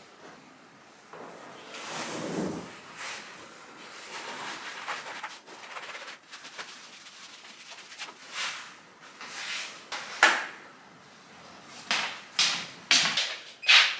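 Yoga mat being picked up off the floor, rolled up and carried, with scattered rustles and footsteps and a few sharp taps near the end.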